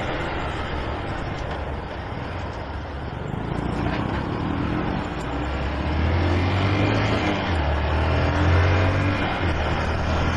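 Single-cylinder four-stroke engine of a Honda CG 125 Fan motorcycle, fitted with an aftermarket exhaust, running steadily at riding speed under heavy wind rush on the microphone. Its low engine note comes up more strongly from about halfway through.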